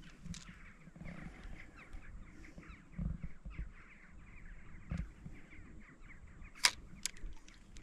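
Faint, dense chatter of many short animal calls, with a couple of dull low knocks in the middle and one sharp click near the end.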